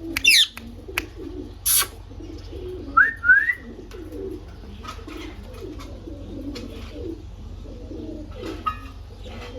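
Ringneck parrots calling: a sharp screech falling in pitch right at the start, then two short rising calls about three seconds in, over a soft, low, cooing warble that runs throughout.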